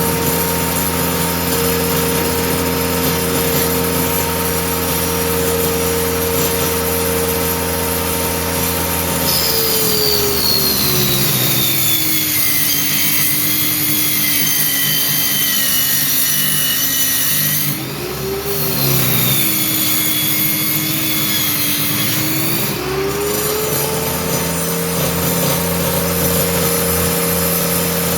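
Homemade circular saw running at full speed, its motor whine dropping in pitch about ten seconds in as the blade bogs down cutting through a speaker-box panel. The pitch lifts briefly near the middle of the cut and climbs back to full speed about five seconds before the end as the cut finishes.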